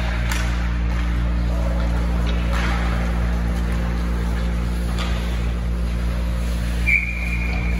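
Ice hockey arena sound: a steady low hum with a few faint knocks from play on the ice, then a referee's whistle blown once near the end, a single steady high note lasting just under a second.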